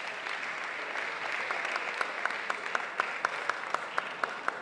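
Audience applauding. From about a second and a half in, sharp claps in a steady rhythm of about four a second stand out over the general clapping.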